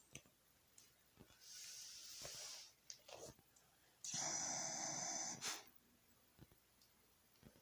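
Black Shiba Inu snoring in its sleep: a wheezy, hissing breath about a second and a half in, then a louder, longer snore at about four seconds, with a few small clicks between.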